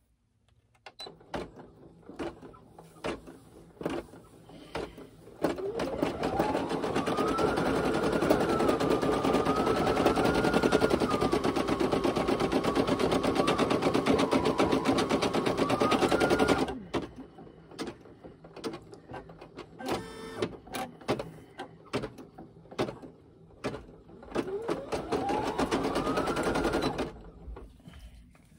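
Brother PE800 embroidery machine sewing a design: scattered clicks, then the needle runs up to speed with a rising whine into rapid stitching for about eleven seconds before stopping. More scattered clicks follow, then a second, shorter burst of stitching that rises in pitch and stops near the end.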